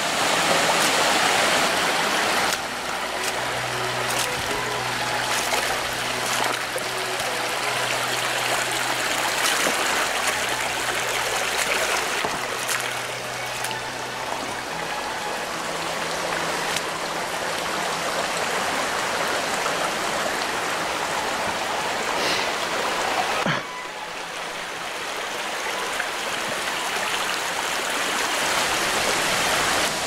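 Rushing water of a rocky forest stream and its small cascades, a steady wash of noise. Its level shifts abruptly about two seconds in and again about twenty-three seconds in.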